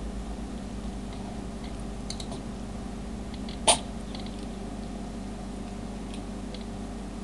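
A cat sneezing once, a single short, sharp sneeze about halfway through, with a few faint ticks around it.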